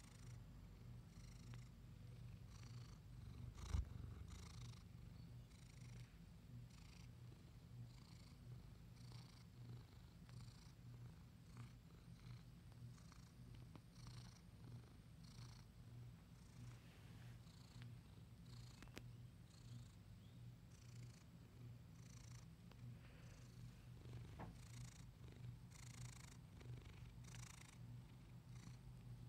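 Domestic calico cat purring softly and steadily, close up, with a single thump about four seconds in.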